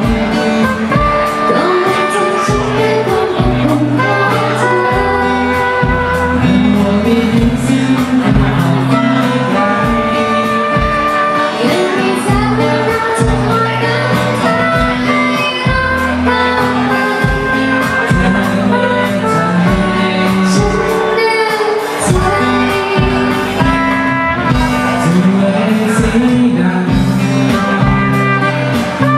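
A pop song with a lead vocal over guitar, bass and drums, with a steady beat.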